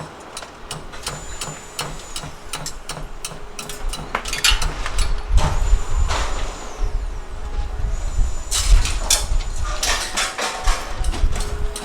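Heavy machinery running with a steady low rumble, with many sharp metal clanks and knocks; the rumble and clanking grow louder about four seconds in.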